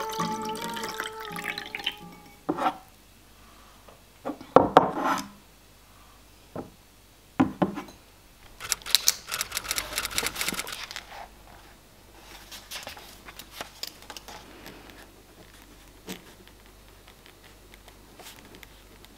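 Water poured from a glass bottle into a drinking glass, its pitch rising slightly as the glass fills, followed by several knocks and clinks of glass set down on a table, the loudest about five seconds in. Then a burst of rustling and a few soft taps of a notebook and pen being handled.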